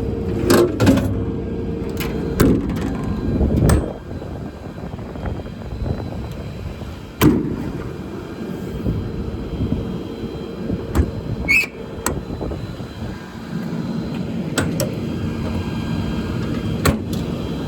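Service-body compartment doors and slide-out tool shelves being worked: a series of sharp clunks and latch clicks, with a short squeak near the middle. Under them runs a steady low hum that fades about four seconds in and returns near the end.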